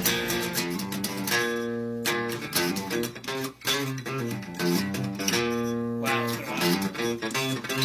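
Guitar playing an instrumental 70s-funk-style theme: quick picked notes and strummed chords, with held chords ringing out about a second and a half in and again about five seconds in. It is played without the wah pedal that was used on the soundtrack recording.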